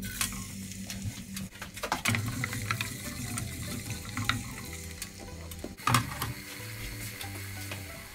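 Chopped garlic and ginger frying in hot olive oil in a small stainless-steel saucepan: a steady sizzle, with a wooden spoon stirring and knocking against the pan a few times.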